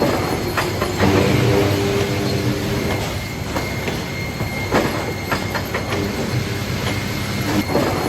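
Sawmill machinery running: a steady metallic clatter and hum, with a faint high whine and a few sharp knocks.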